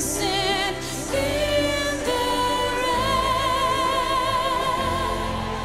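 A pop ballad played live: a woman's voice holds a long, wavering note with vibrato over a steady backing of keyboards and bass.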